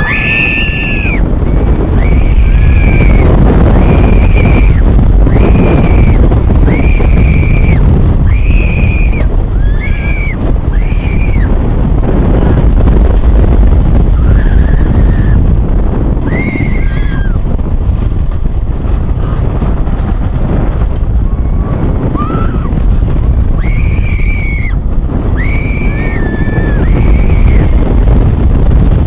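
Boulder Dash, a CCI wooden roller coaster, its train running fast along the wooden track: a loud, steady roar of wheels and wind on the microphone. Over it come short high-pitched yells from riders, about one a second through the first eleven seconds, a few in the middle and again near the end.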